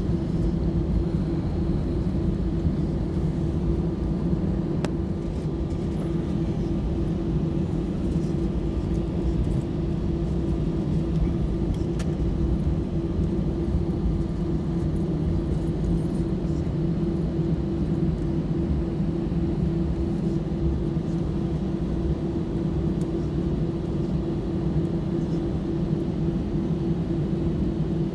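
Cabin noise of an Airbus A319 airliner taxiing after landing: a steady low rumble from the engines at idle and the wheels rolling, with a constant low hum and a couple of faint clicks.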